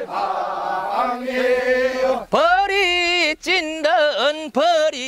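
Men singing a Korean rice-paddy weeding work song (nonmaeneun sori) unaccompanied: a long held note from the group, then about two seconds in a single voice takes up a wavering, bending line in short phrases.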